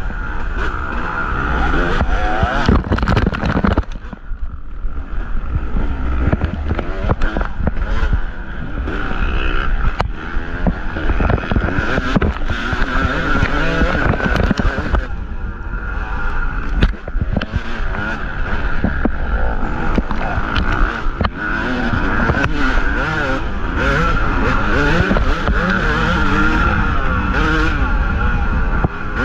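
2023 Yamaha YZ250 two-stroke single-cylinder dirt bike engine revving hard and constantly rising and falling in pitch as it is raced along a trail, with brief throttle lifts about four seconds in and again around fifteen seconds. Knocks and rattles from the bike crossing rough ground run through it.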